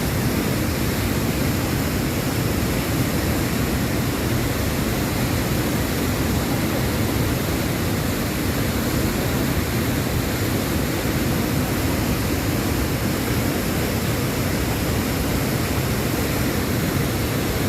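Waterfall's rushing water: a loud, steady roar of falling and churning water that does not change.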